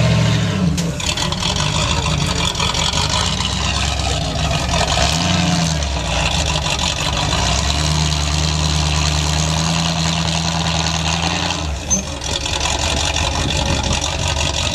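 1979 Ford Bronco rock crawler's engine running and revving under load as the truck climbs rock and concrete ledges, its pitch rising and falling, held steady for a few seconds, then changing abruptly near the end.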